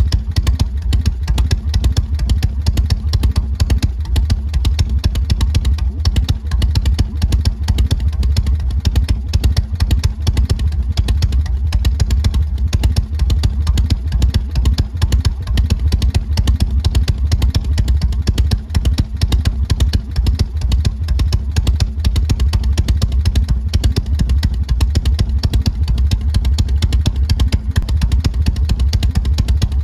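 Harley-Davidson Shovelhead air-cooled V-twin engine running at a steady speed, its exhaust giving a loud, even, deep pulsing beat.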